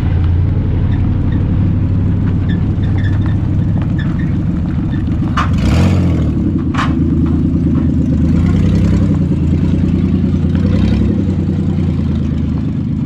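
Demolition derby car engine running loud with a low rumble, its pitch shifting briefly about six seconds in, with two sharp knocks around then.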